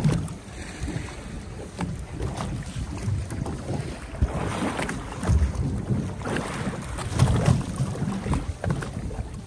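Wind buffeting the microphone in uneven gusts on a small boat at sea, with low rumbling and occasional knocks from the boat and water.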